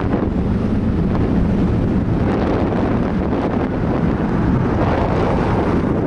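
Wind rushing over the microphone of a bicycle-mounted camera while riding, a steady loud buffeting. A car comes up close alongside to overtake near the end.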